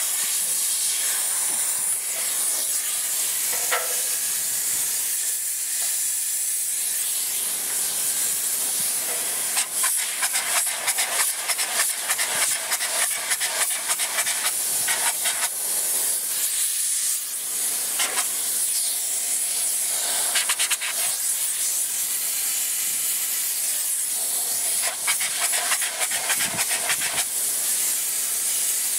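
Spray-foam insulation gun hissing steadily as it sprays foam onto a wall, with stretches of rapid crackling.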